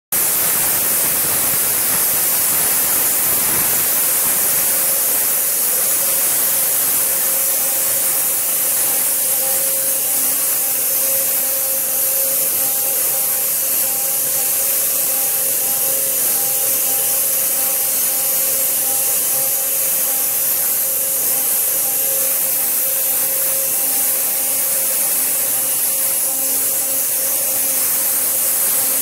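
Flow Mach 3 2513b waterjet cutting: the high-pressure jet gives a loud, steady hiss as it cuts and churns the water in the catch tank, with faint steady tones underneath.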